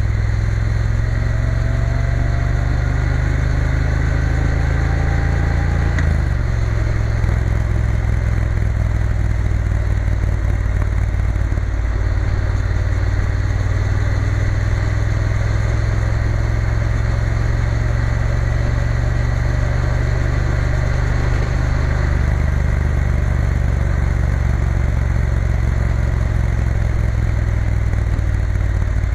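Triumph Bonneville T120's parallel-twin engine running under way at low road speed. Its pitch rises slowly, drops abruptly about six seconds in, then holds steady over a constant rush of noise.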